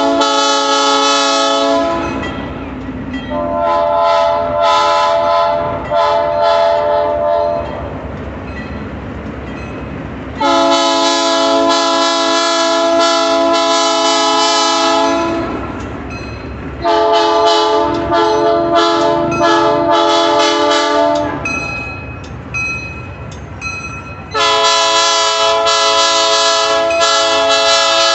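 Diesel locomotive air horn sounding in five long blasts, the second one weaker. In the gaps between blasts the train rumbles low as it rolls past.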